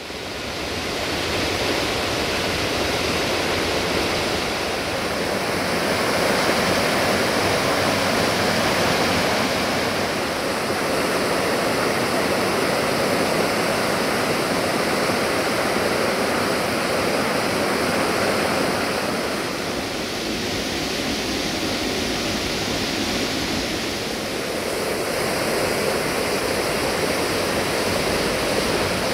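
Waterfall rushing: a steady, even noise of falling water that fades up over the first second and then holds.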